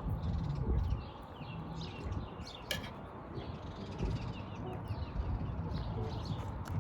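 Small birds chirping outdoors in short, rapid falling notes, with low rumbling and handling noise underneath.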